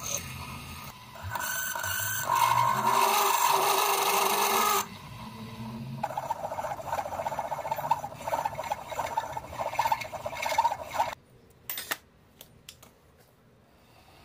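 Twist drill in a benchtop mill-drill cutting into a metal block held in a vise, a rough, grating cutting noise over the running spindle. It is loudest for a couple of seconds near the start, goes on more unevenly, then stops abruptly about eleven seconds in, leaving a few faint clicks.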